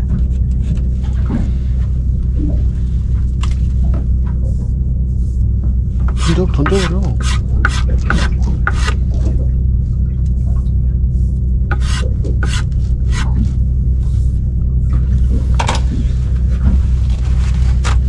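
A knife scraping and slicing through fish on a cutting board during filleting, in irregular quick strokes that come in two spells, over a steady low engine hum.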